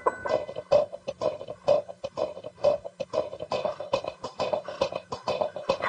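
Soundtrack music made of rapid, uneven clicks and knocks, about four or five a second, over a faint steady low hum.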